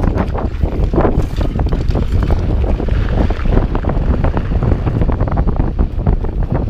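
Wind buffeting the microphone on a moving bike: a loud, steady low rumble, with irregular knocks and rattles through it.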